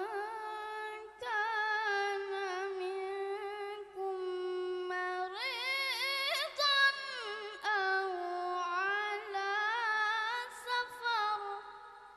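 A boy's solo Quran recitation (tilawah) in the high, melodic qari style, sung into a microphone: long drawn-out phrases with wavering ornaments, broken by short breaths about a second in and around four and five seconds. The voice climbs highest about halfway through, then trails off near the end.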